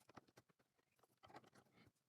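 Faint, scattered clicks and taps of plastic LEGO pieces being handled and pressed together, a few in quick succession.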